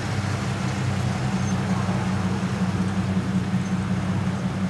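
Motor vehicle engine running steadily, a low even hum with faint road noise.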